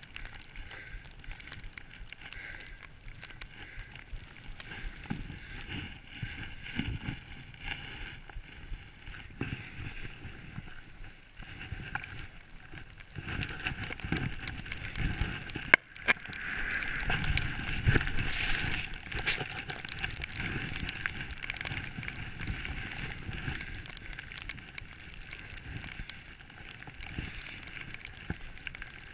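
Skis rushing through deep powder snow, a steady hiss and swish with wind noise on the microphone. A sharp click comes a little past halfway, followed by a few seconds of louder rushing.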